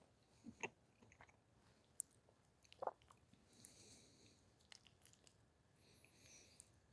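Faint chewing and mouth sounds of someone eating mac and cheese, with a few soft clicks and ticks.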